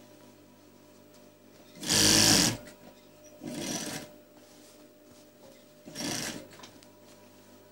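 Industrial sewing machine stitching in three short bursts. The first, about two seconds in, is the longest and loudest, and a faint steady hum runs between the bursts.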